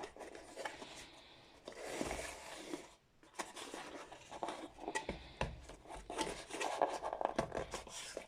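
Packaging being handled and opened by hand: irregular rustling and scraping with scattered sharp clicks.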